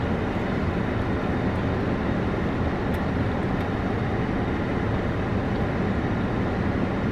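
Steady low rumble and hiss of a running car, heard inside its cabin.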